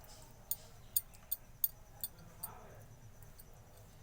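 Light, sharp clicks of a utensil against a plate while pizza sauce is spread over the raw dough base, about six in the first two and a half seconds.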